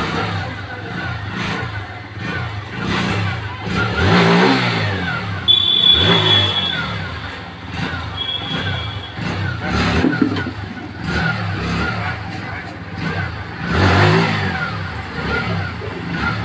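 TVS Sport BS6 motorcycle's single-cylinder engine being revved over and over, its pitch rising and falling with the throttle, as the bike is tested after its burnt clutch plates were replaced. Two short, high, steady beeps sound about a third and halfway in.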